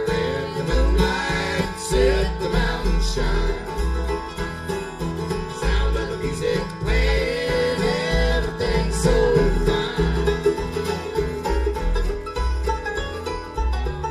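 Bluegrass music with picked string instruments over a steady, pulsing bass beat.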